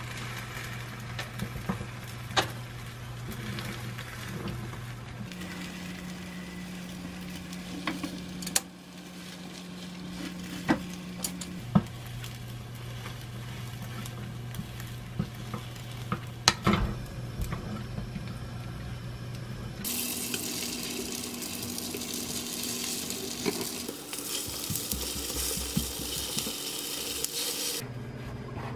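Egg batter frying in a square nonstick egg-roll pan while a rolled omelette is folded over with a spatula and chopsticks: steady sizzling with sharp clicks and taps of the utensils against the pan. About twenty seconds in, the sizzle turns much louder and hissier for several seconds.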